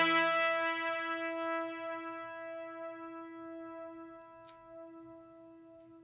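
Background music: a single held note with its overtones slowly fading away.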